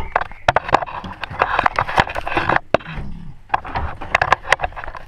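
Irregular sharp clicks and knocks with scraping, from hand tools and parts being handled while an alloy wheel is put back together.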